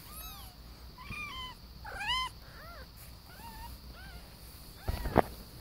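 Newborn kittens mewing: many short, high-pitched calls that rise and fall, several overlapping. Near the end there are a couple of sharp knocks.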